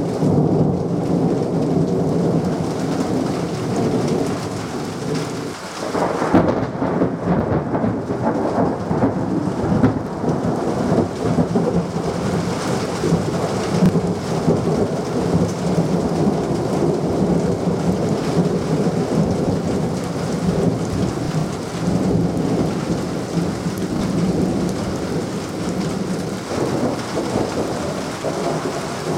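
Thunderstorm: heavy rain falling steadily with thunder rumbling through it, growing suddenly louder about six seconds in.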